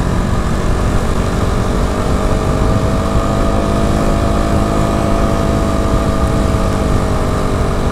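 Motorcycle engine running at a steady road speed, its pitch rising a little and then easing off, with heavy wind and road noise on the bike-mounted microphone.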